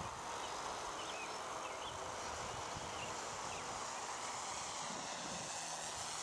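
Faint whine of a radio-controlled Dynam Cessna 310's twin electric motors flying a fast pass, its pitch sliding down and back up in the second half. Steady outdoor hiss underneath, with a few short chirps near the start.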